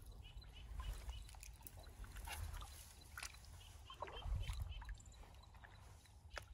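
Faint splashing of bare feet wading through shallow creek water, a few soft sloshes at irregular steps.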